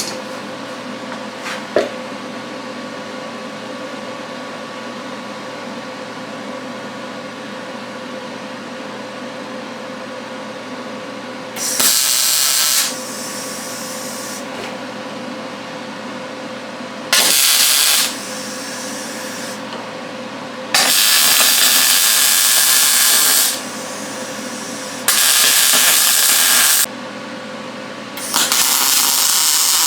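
MIG welder with shielding gas laying short welds, turned down for thin steel: five bursts of arc hiss and crackle, each one to three seconds long, with a steady hum between them.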